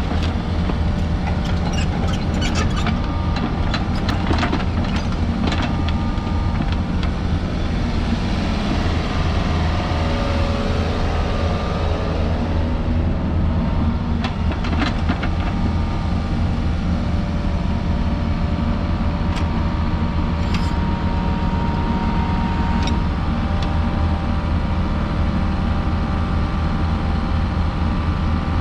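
Takeuchi TB160C midi excavator's diesel engine running steadily while the boom, arm and bucket are worked, with a few clanks along the way.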